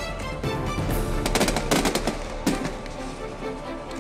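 Background music over rapid clusters of sharp bangs and crackles from aerial fireworks bursting.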